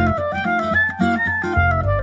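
Instrumental jazz background music, a reed-like melody stepping up and down over a low bass that comes in near the end.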